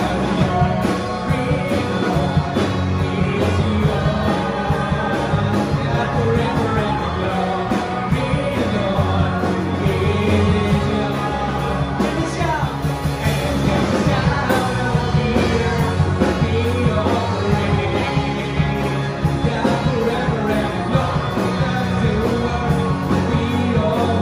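Live worship band playing an upbeat rock-style song with singing, acoustic and electric guitars and keyboard.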